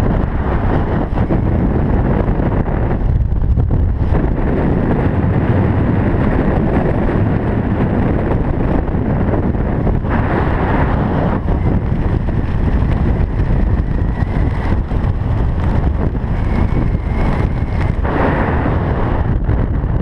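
Strong wind buffeting the camera microphone under an open parachute canopy: a loud, steady rushing roar heaviest in the low end, with a faint thin whistle coming and going in the second half.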